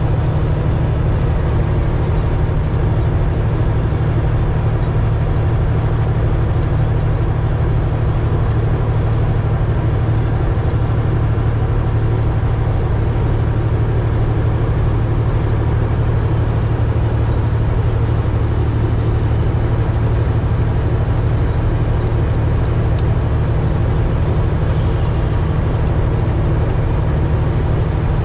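Semi-truck cruising at highway speed, heard inside the cab: a steady low diesel engine drone with road and tyre noise.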